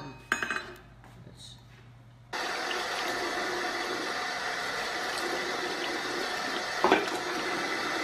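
A few light clinks of a small metal cup, then, from about two seconds in, a steady rush of tap water pouring into a bathroom sink and splashing over a bathing female eclectus parrot, with one brief louder splash near the end.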